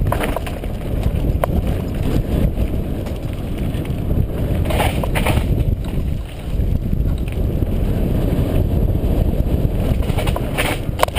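Mountain bike riding downhill over a rocky dirt trail and onto concrete: wind buffeting the microphone and tyre rumble, with occasional knocks and rattles from the bike. There are brief scraping bursts about five seconds in and near the end.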